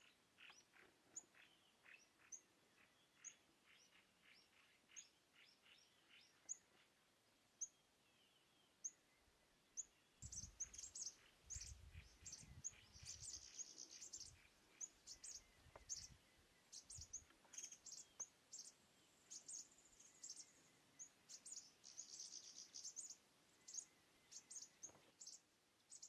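Faint wild songbirds chirping: short high chirps repeating about once or twice a second, getting busier about ten seconds in, with some low rumbling underneath.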